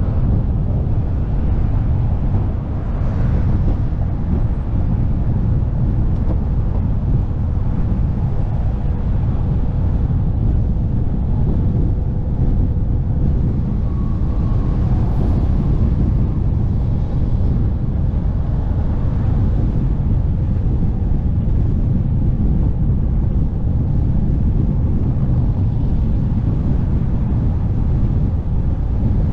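Steady low rumble of wind on the microphone and rolling road noise from a velomobile riding along at an even pace.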